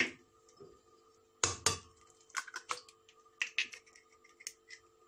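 An egg cracked against a glass blender jar and emptied into it: a sharp knock about a second and a half in, then a scatter of small clicks as the shell is handled.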